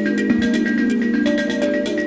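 Instrumental electronic music: a held bass note under quick repeating melodic notes and a fast, steady ticking beat.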